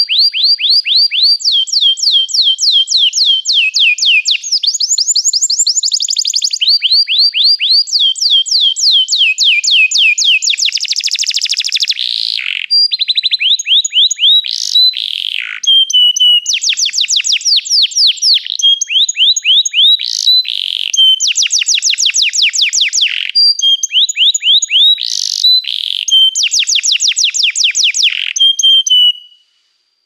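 Domestic canary singing a long, loud song made of rapid trills, each a fast run of the same short note repeated, switching to a new trill every second or two. The song stops suddenly near the end.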